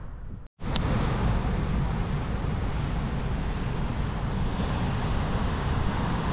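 Ocean waves breaking on a rocky shore, a steady rush of surf with wind buffeting the microphone, beginning abruptly about half a second in.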